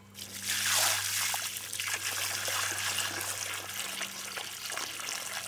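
Water pouring into a shallow hole dug in clay soil, splashing and trickling as the hole fills; it starts about half a second in and goes on steadily.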